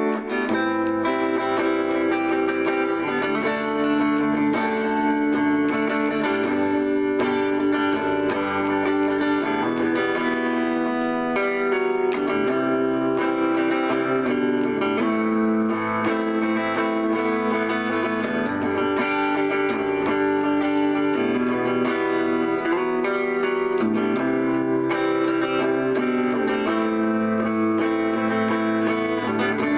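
Electric guitar on a clean amp tone, played freely: ringing chords and melody lines whose notes change every second or two.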